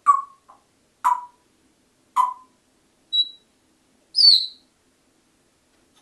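African grey parrot calling: three short, sharp calls about a second apart, then a brief high whistle and a louder whistle that falls in pitch.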